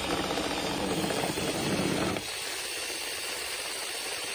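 Electric drill set to a low speed turning a manual burr grinder's shaft through a socket bit, the burrs grinding with a dense, rattling mechanical noise. About two seconds in the low grinding noise drops away, and a lighter steady whir carries on.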